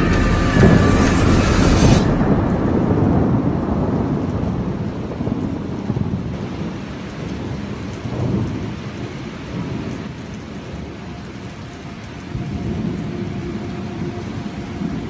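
Rain with rolling thunder. The storm is loudest at the start; the hiss cuts off abruptly about two seconds in, and the low rumble fades, then swells again twice.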